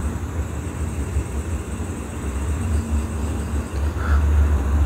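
Low, uneven rumble with no voices, sitting deep in the bass, with a faint hiss above it.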